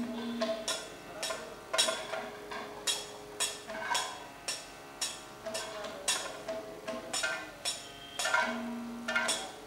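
Kathakali percussion accompaniment: maddalam drum strokes mixed with sharp, ringing metal strikes, coming about one or two a second in an uneven rhythm.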